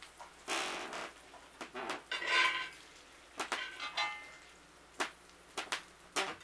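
Metal tongs clinking and scraping against a cast iron skillet as cooked bacon is lifted out, with bacon sizzling in the pan. The clinks come irregularly, about eight sharp ones, and one rings briefly about two seconds in.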